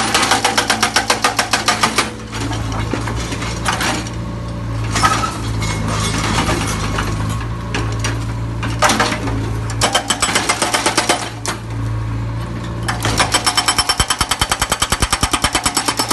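Backhoe loader's diesel engine running steadily, with bursts of rapid hammering, about nine blows a second: one at the start, a shorter one past the middle and a longer one near the end.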